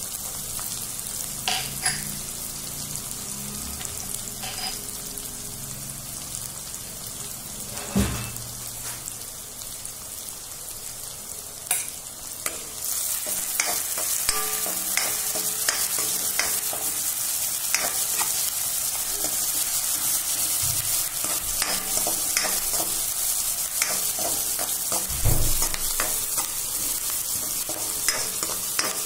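Chopped onions, green chillies and garlic sizzling in hot oil in a kadhai, with a spatula stirring and scraping against the pan. The sizzle grows louder about halfway through, when the stirring starts, with sharp knocks of the spatula on the pan.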